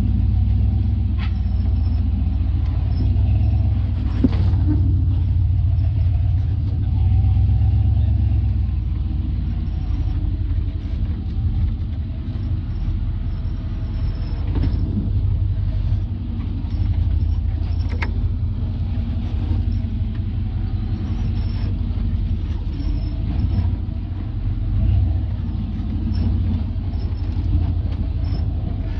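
Off-road Jeep engine running at low speed with a steady low rumble, and a couple of sharp knocks, about 4 and 18 seconds in, typical of the rig working over rocks.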